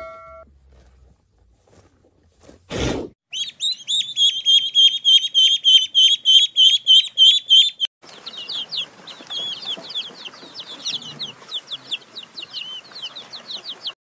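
Bird calls: a fast, even run of repeated high chirps, about four a second, then after a cut a looser, more ragged run of chirps over a faint hiss. A short loud whoosh comes just before the chirping starts.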